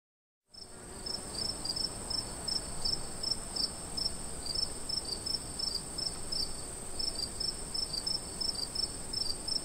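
Crickets chirping: a steady high ring with quick, repeated high chirps over it, starting about half a second in after a moment of dead silence. It is used as the stock 'crickets' effect for an awkward silence.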